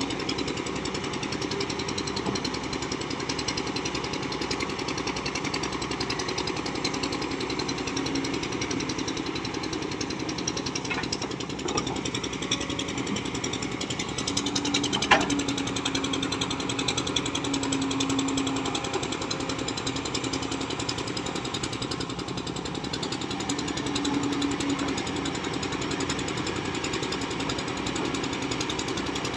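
Kobelco SK200-10 excavator's four-cylinder diesel engine running steadily with a fast, even knock. A low hum comes and goes a few times, and there is a sharp tick about fifteen seconds in.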